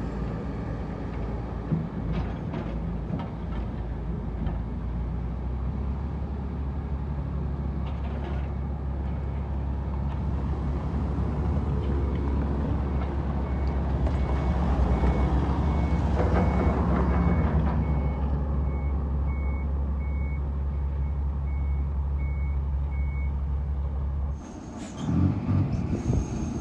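Heavy diesel truck engine running with a steady low drone while its reversing alarm beeps at an even pace for about ten seconds. The engine drone drops away near the end, followed by short bursts of air hiss from the air brakes.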